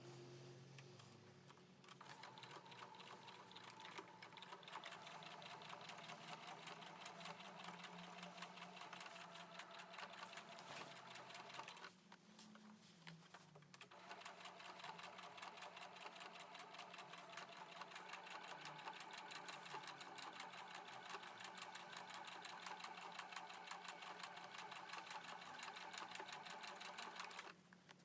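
Sewing machine stitching canvas in two runs of fast, even stitches, stopping for a couple of seconds about twelve seconds in.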